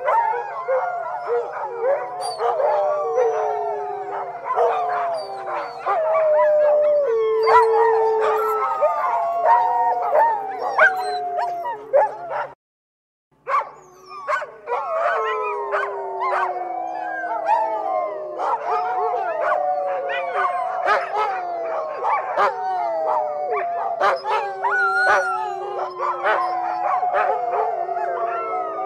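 Several dogs howling together in overlapping, wavering howls, mixed with short yips. The sound cuts out for under a second about halfway through, then the howling chorus resumes.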